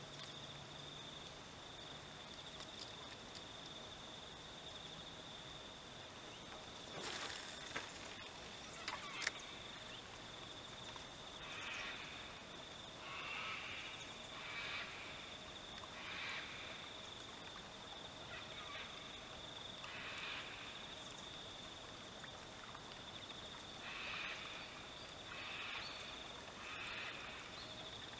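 Faint evening outdoor ambience: a steady high-pitched insect whine, joined in the second half by a series of short animal calls every second or two. A brief rush of noise about seven seconds in is followed by a couple of sharp clicks.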